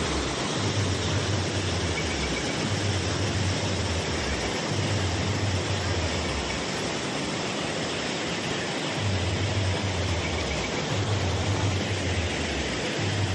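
Steady rush of a waterfall, with a low rumble that comes and goes every few seconds.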